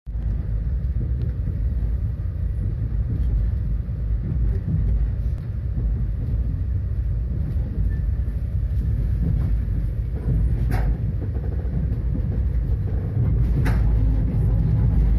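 Passenger train running at speed, heard from inside the carriage: a steady low rumble, with two sharp clicks or knocks in the second half.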